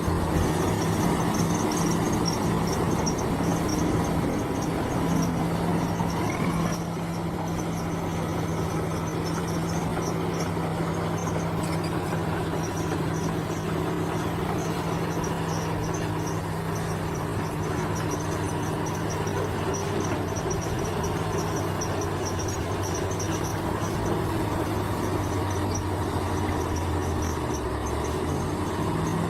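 Bulldozer's diesel engine running steadily, a little louder for the first several seconds, with a faint high pulsing sound above it.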